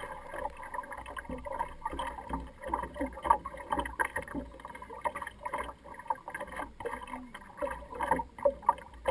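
Water splashing and burbling against the hull of an Optimist sailing dinghy under way, in an irregular patter of small slaps, with wind gusting over the microphone.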